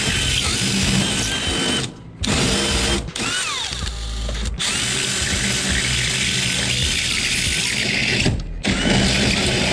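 Power drill boring holes through a door with a unibit step drill bit. The drill stops and restarts four times, and its pitch rises and falls as the motor speeds up and slows.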